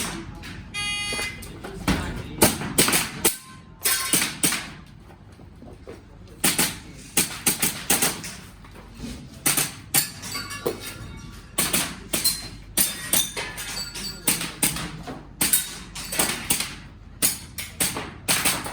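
An electronic shot timer beeps once, about a second in. Then an airsoft pistol fires string after string of sharp shots, with a brief pause partway through.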